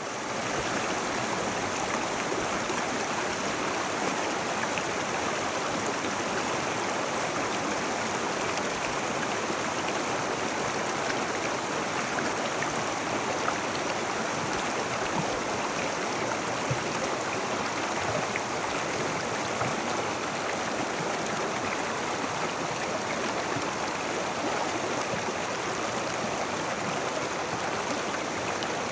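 Mountain river rushing steadily over rocks, a continuous even flow of water.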